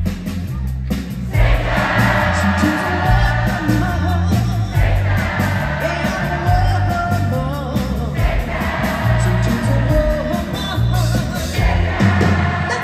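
A rock band playing live with a woman singing lead into a microphone over electric guitar and a steady bass-heavy beat; the vocal comes in about a second in, heard from within the crowd.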